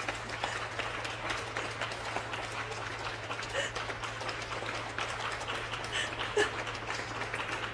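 Crowd noise: indistinct chatter with scattered clapping, over a steady low hum.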